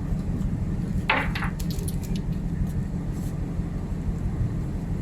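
A steady low drone of ship's machinery. About a second in there is a short scrape, followed by a few light clicks and clinks.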